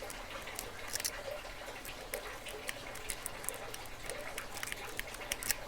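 Faint, irregular small clicks and scrapes of a lock pick and tension wrench working the pin tumblers inside a Master padlock.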